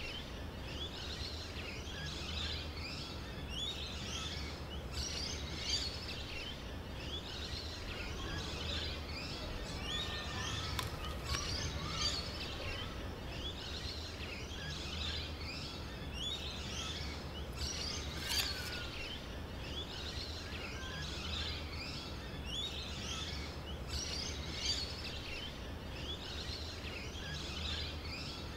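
Many small birds chirping continuously in a dense, repeating chorus of high, short calls over a low steady hum.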